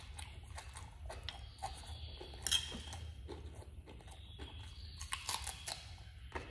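Close-up chewing and biting of food, wet mouth clicks and smacks, with one sharp crunch about two and a half seconds in.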